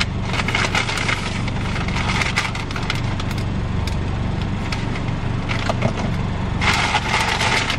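Car engine idling steadily under the crackling rustle of a paper takeout bag being handled, with a louder rustle near the end.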